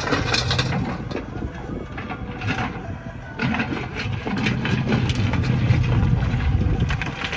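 Diesel engine of heavy earthmoving machinery running steadily, easing off a little about two seconds in and building again from about three and a half seconds, with scattered knocks and clatter over it.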